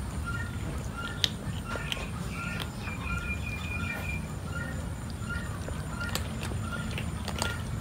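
Several cats crunching dry kibble, heard as scattered sharp clicks over a low background rumble. A short high chirp repeats about twice a second throughout, with one longer held high note around the middle.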